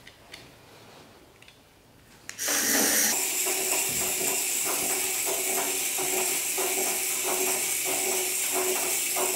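Remote-control cockroach toy's small motor running, a steady buzzing hiss with a fast rattle from its legs on the wooden platform, starting about two and a half seconds in after a few faint clicks.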